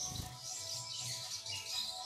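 Sogok ontong (sogon) singing with a run of high, thin chirps and twitters, with a brief low flutter of wings on the perch at the start.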